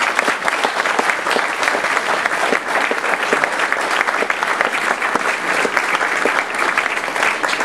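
Audience applauding steadily: dense, even hand-clapping.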